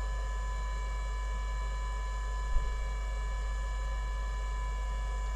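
Steady electrical mains hum with several thin, steady high-pitched tones over it, with one short click about two and a half seconds in.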